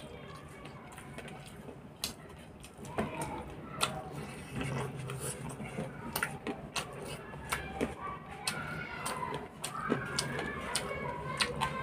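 Close-up eating sounds: many short wet mouth clicks and lip smacks from chewing and licking food off the fingers.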